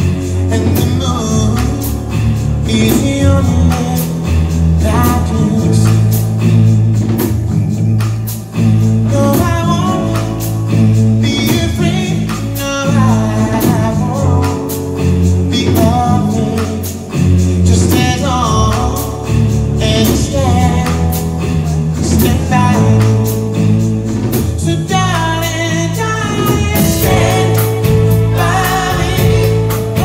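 Four-man vocal group singing in close harmony into microphones, backed by a live band with bass and drums keeping a steady beat.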